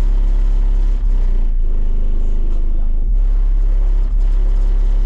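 Four 15-inch Sundown Audio ZV5 subwoofers, driven by Sundown SALT 8 amplifiers, playing very loud deep bass inside the car. It is one steady low note with overtones above it, broken by short dips every second or so.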